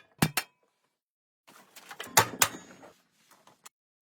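Metal tools and parts clinking and knocking as they are handled: a couple of clicks at the start, then scraping and two sharp metallic knocks about two seconds in.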